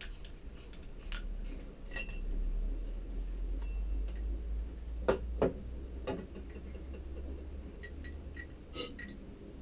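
Metal clicks, clinks and knocks from a hand-pump galley faucet being taken apart by hand, its pump rod and cylinder worked loose; the loudest is a close pair of knocks about five seconds in, and a quick run of small ticks comes near the end. A low rumble runs underneath.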